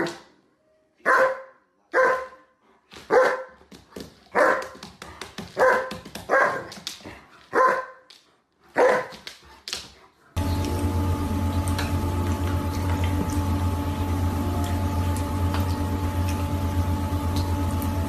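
A large dog barking in play, about nine short barks roughly once a second. About ten seconds in, they give way to a steady hum.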